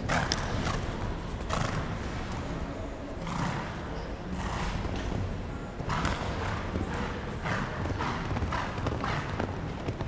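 Hoofbeats of a show jumper cantering and jumping over sand arena footing, a steady run of dull strokes about once a second.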